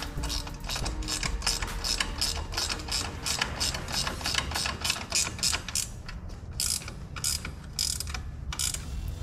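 Ratchet wrench being worked, its pawl clicking about five times a second, then slower and more scattered clicks in the last few seconds.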